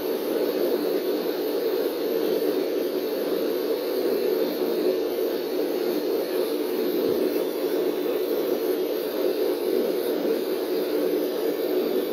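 Tattoo machine running with a steady, unbroken hum.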